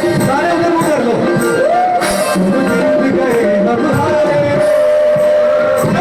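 Live music: a singer's voice winding through ornamented melodic runs over band accompaniment with percussion, ending on a long held note.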